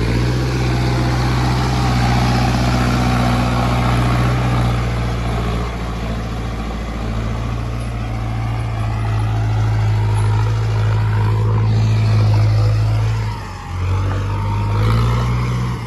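Mahindra tractor's diesel engine running hard at high revs as the tractor drives out of mud and up a dirt ramp. About thirteen seconds in the revs drop briefly, then pick up again.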